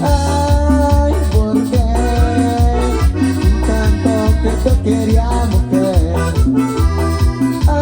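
Instrumental cumbia played on an electronic keyboard: a held, accordion-like melody over a steady bass beat and a shaker rhythm.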